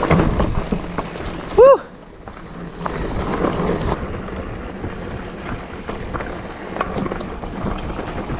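Mountain bike descending a dirt trail: tyres rolling over dirt and roots, with steady rumbling noise and occasional clicks and knocks from the bike. About two seconds in, a brief, loud, pitched squeal cuts through.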